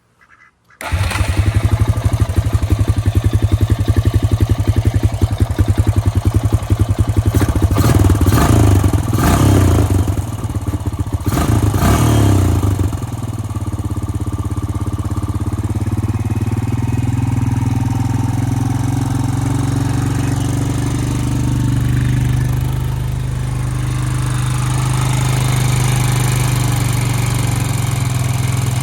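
2002 Honda Rancher ES ATV's single-cylinder engine starting about a second in and running, uneven with rises and dips in revs for the first dozen seconds, then settling into a steady idle.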